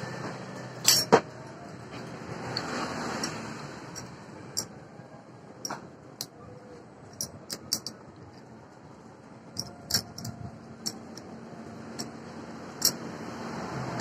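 Small steel parts (bolts, nuts and a bracket) clinking and tapping against an angle grinder's housing as they are fitted by hand. Two louder knocks about a second in, then scattered light clicks.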